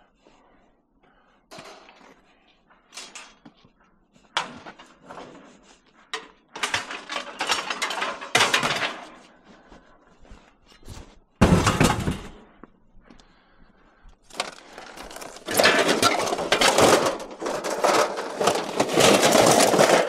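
Scrap metal and odds and ends being thrown into a truck bed: a run of clattering knocks and crashes, with one heavy bang a little past halfway and longer stretches of rattling clatter near the end.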